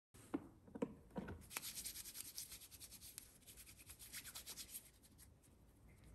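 Faint, rapid rubbing of hands together with alcohol hand sanitiser gel during hand hygiene. The rubbing starts after three short knocks in the first second or so and thins out near the end.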